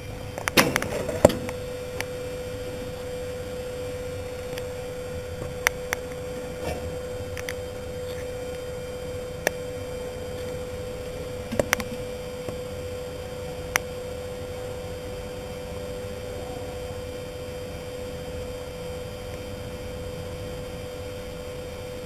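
Old Dźwigi i Anteny passenger-goods lift starting off and travelling: a burst of sharp clicks about a second in, then a steady high-pitched hum from the lift drive held through the ride, with a few single clicks along the way.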